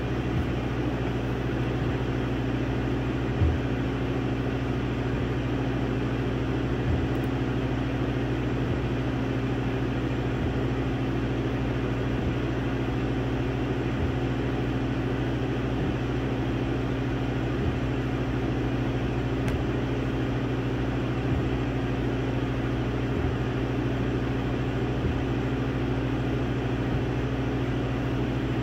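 Laser engraver running as it burns a design into wood: a steady mechanical hum, with faint low knocks every couple of seconds and a slightly louder one about three seconds in.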